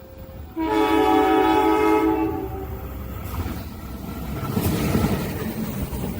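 Train horn blowing one blast of about two seconds, several tones sounding together, starting suddenly about half a second in. The rumble and rattle of the train running past then build up.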